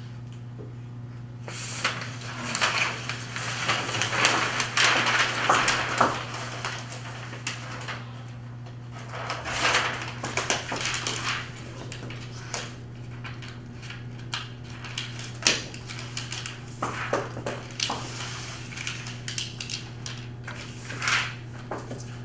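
A large paper chart rustling and crackling in bursts as it is handled and pressed up against a wall, with a few sharp knocks, over a steady low hum.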